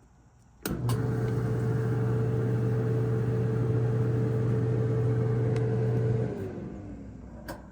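Whirlpool dryer's drive motor starting with a click and running with a steady hum, then winding down with a falling pitch about six seconds in, followed by another click. The drum is not turning, which points to a broken or missing drive belt.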